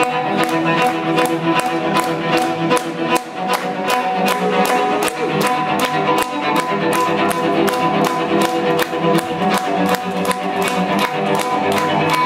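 Bowed cello playing over layered sustained tones, with a steady ticking pulse of about three clicks a second from the live electronics.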